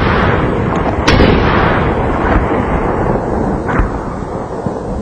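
A series of loud booms: one right at the start, another about a second in and a weaker one near four seconds, each trailing into a long rumble that slowly fades.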